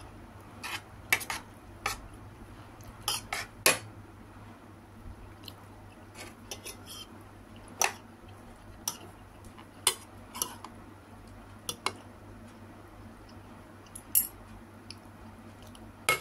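Metal spoon and fork clinking and scraping against a plate of rice, in scattered, irregular clicks, with a low steady hum underneath.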